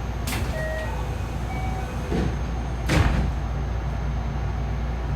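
JR West 207 series electric commuter train heard from inside the car: a steady running rumble, with two sharp knocks, the louder one about three seconds in.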